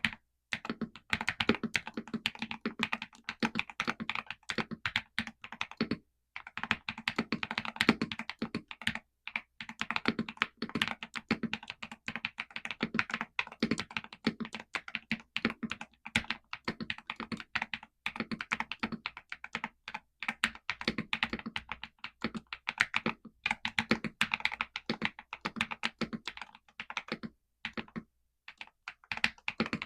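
Fast, continuous typing on a Galaxy 65 mechanical keyboard fitted with XVX crystal jelly OEM-profile keycaps: a dense run of key clacks with a few short pauses.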